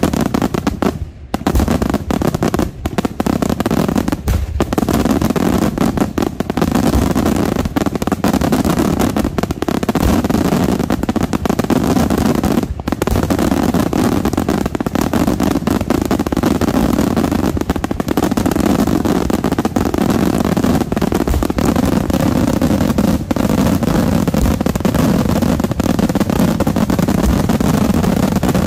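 Daytime aerial fireworks shells bursting overhead in a dense, rapid, almost unbroken barrage of bangs. There is a brief lull about a second in and another near the middle.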